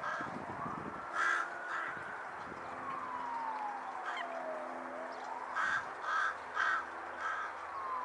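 Carrion crow cawing: two harsh caws a little over a second in, then a run of four caws about half a second apart near the end.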